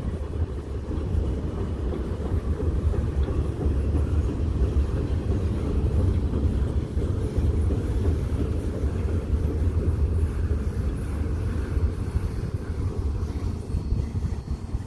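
Freight train rolling past: a steady low rumble of railcars on the track, with no change through the stretch.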